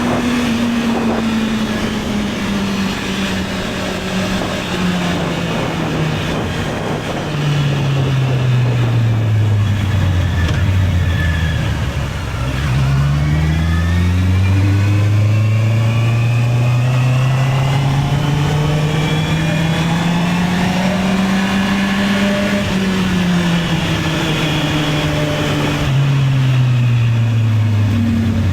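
Honda CB650R's inline-four engine, heard from the rider's seat: the engine note falls away as the bike slows over the first ten seconds or so, then climbs in one long steady pull as it accelerates, and eases off again near the end.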